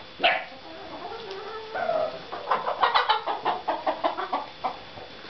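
Domestic hens clucking, with a rapid run of short, sharp clucks from about two and a half seconds in.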